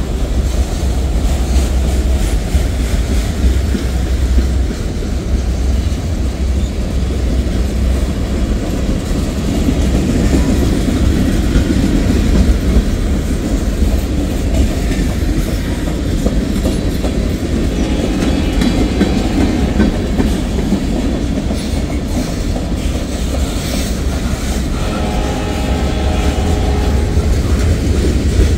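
Freight cars of a Norfolk Southern mixed manifest train rolling steadily past, a continuous rumble with wheels clacking over the rail joints.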